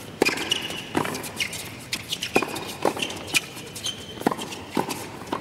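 Tennis rally on an indoor hard court: a quick exchange of racket-on-ball strikes at the net, with sneakers squeaking on the court surface between the shots.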